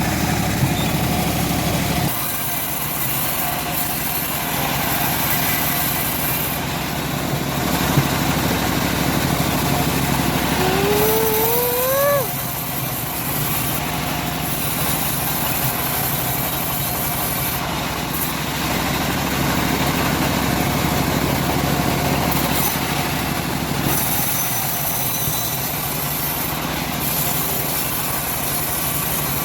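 Homemade engine-driven bandsaw mill running steadily as it saws a teak log. A short rising tone is heard about eleven seconds in.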